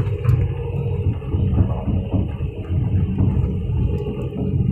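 Kobelco excavator's diesel engine running as the machine moves, heard from inside the cab.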